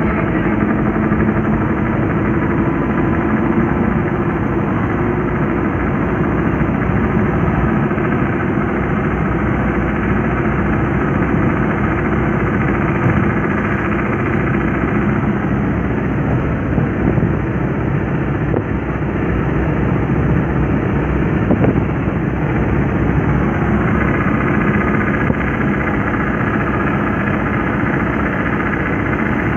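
Engine and road noise of a moving vehicle, heard from inside as it drives along; a steady drone throughout.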